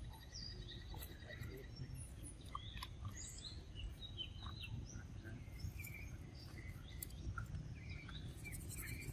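Faint outdoor ambience: scattered short, high chirps over a steady low rumble.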